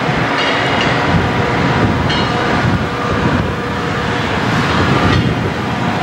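Metra commuter train's bilevel gallery coaches rolling past, wheels clattering steadily on the rails, with brief high-pitched tones three times.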